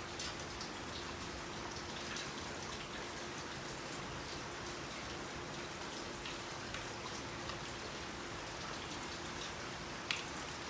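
Small scattered crackles and ticks of basket-weaving material being handled, over a steady hiss and a faint low hum, with one sharper click near the end.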